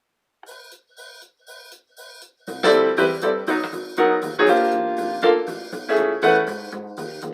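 Keyboard music in a piano sound: four short, soft notes about half a second apart, then loud full chords with a bass line from about two and a half seconds in.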